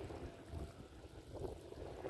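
Wind buffeting the microphone in uneven low gusts, over faint lapping of lake water.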